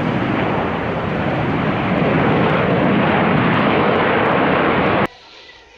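Steady airplane engine noise, cutting off suddenly about five seconds in.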